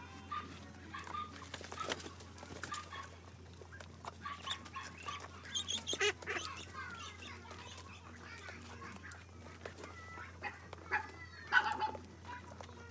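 A flock of Muscovy ducks feeding at a basin: many short, soft chirping calls, with scattered clicks and knocks as they feed.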